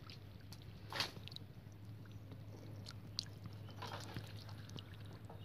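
Faint wet clicks and small splashes of shallow muddy water, the loudest about a second in, over a steady low hum.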